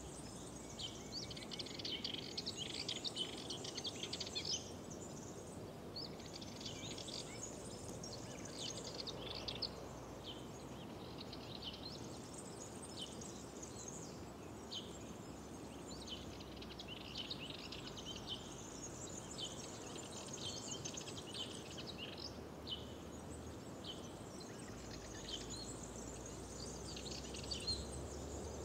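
Many songbirds chirping and singing at once, a dense run of short calls with no pause, over a steady low background rush.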